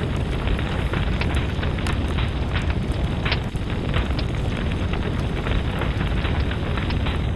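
Wood fire burning in a fireplace: a steady low rumble of the flames with scattered sharp crackles and pops, one louder pop a little past three seconds in.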